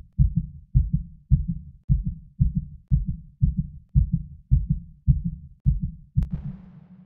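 Heartbeat sound effect: fast, even low double thumps, a little under two a second. It stops about six seconds in on a sharp click, followed by a short fading hiss.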